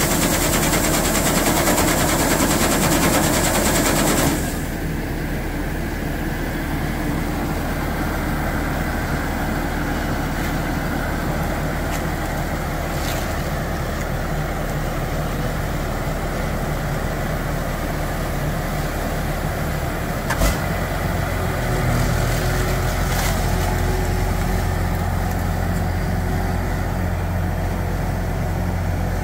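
A tracked rice combine harvester's engine running steadily. For the first four seconds, threshed paddy rice pours from the unloading auger spout into a pickup bed with a loud hiss, which cuts off sharply. A single knock comes about two-thirds of the way in, then the engine note grows stronger and deeper.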